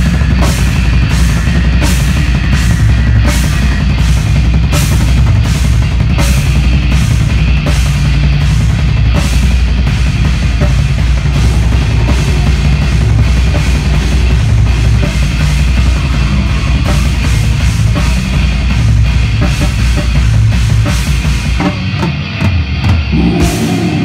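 Live heavy metal band playing loud through a club PA: a pounding drum kit with even cymbal and snare hits about twice a second over heavy low guitar and bass. The drum hits thin out near the end.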